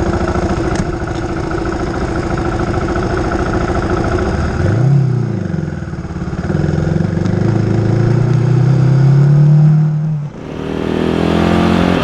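Single-cylinder dual-sport motorcycle engine idling, a quick rev about five seconds in, then pulling away with its pitch climbing steadily. Near the end it cuts to the bike running at speed with wind rushing over the helmet visor.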